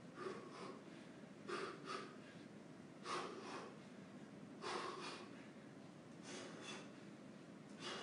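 A boxer's short, sharp breaths out with his punches while shadowboxing. They are faint and come in quick pairs about every second and a half.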